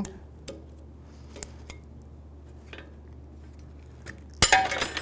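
Snap ring pliers working a steel wheel-bearing snap ring out of a rusted steering knuckle: a few light metal clicks, then about four and a half seconds in a sharp metallic clink that rings briefly as the ring springs loose.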